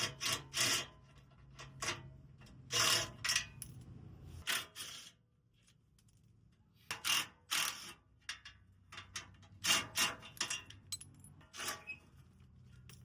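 Irregular metallic clinks, knocks and scrapes of a socket wrench working 12 mm bolts loose from a truck's steel front skid plate, with a quiet gap midway.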